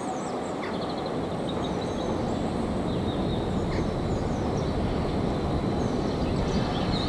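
Steam locomotive approaching slowly, a steady low rumble that grows a little louder, with small birds chirping over it.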